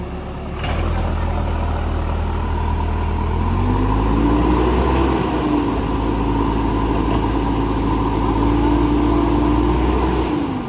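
Backhoe loader's diesel engine running, picking up just under a second in, then revving harder about three and a half seconds in with a rising whine that holds steady and falls away just before the end.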